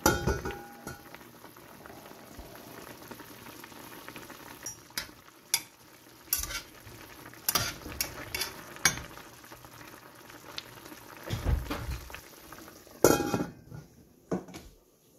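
Pork boiling in a stainless steel pot, a steady bubbling hiss, with metal tongs clicking against the pot as the meat is turned. A metal lid clanks as it is lifted off at the start and clanks again when it is put back on near the end.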